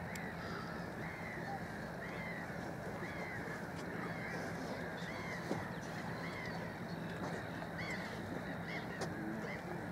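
A large flock of gulls calling: many short rise-and-fall cries, one or two a second and overlapping, over a steady background noise.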